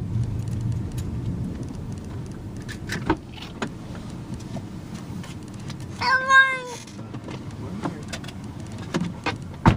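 A domestic cat meows once, a single rising-then-falling call about six seconds in, over a low steady rumble, with a few short knocks.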